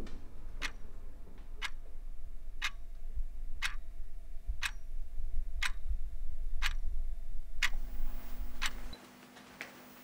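Clock ticking steadily, about one tick a second, over a low rumble that cuts out about nine seconds in.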